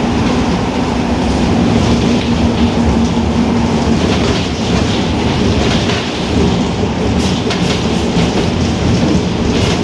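Marcopolo Torino S bus's differential whining steadily over loud drivetrain and road rumble at highway speed; the whine is strongest for the first few seconds and then fades into the rumble. A few sharp rattles are heard in the second half.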